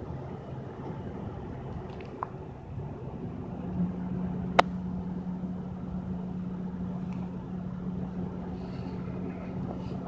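Car engine idling, heard from inside the cabin: a steady low hum that takes on a steady low drone a few seconds in. A single sharp click about halfway through.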